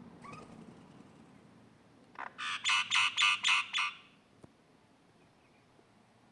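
A mynah calling: a few faint short notes at the start, then a loud rapid series of about eight notes, roughly five a second, lasting under two seconds from about two seconds in.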